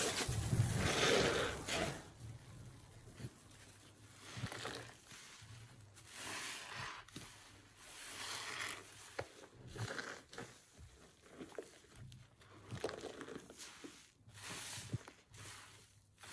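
Soapy kitchen sponges squeezed and wrung by hand in a bucket of sudsy water. A loud wet swishing for the first two seconds or so, then quieter squelches of the foam-filled sponge every second or so.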